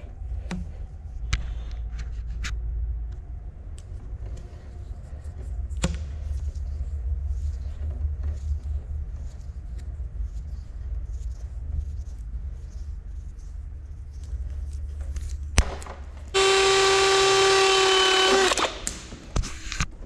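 Battery-powered crimping tool's motor runs for about two seconds, a loud, steady whine that starts and stops abruptly, crimping a lug onto a heavy wire. Before it there is a low steady hum with a few light clicks from the wire and tape being handled.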